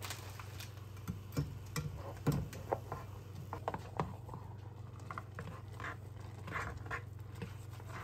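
Ramen broth simmering in a frying pan, with irregular small pops and clicks as chopsticks stir the noodles against the pan, over a steady low hum.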